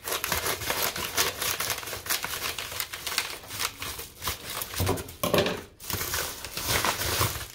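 Plastic packaging crinkling and tearing as a package is cut and pulled open by hand, a dense run of crackles throughout.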